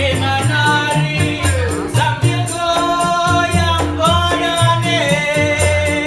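Live acoustic band playing a song: a singer holding long, bending notes over two strummed small ukulele-type guitars, a plucked cello and a walking double-bass line, with a shaker ticking a steady quick rhythm.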